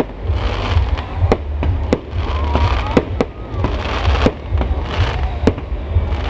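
Fireworks going off: a string of sharp bangs and cracks at uneven intervals, several a few seconds apart and some close together, over a steady low rumble.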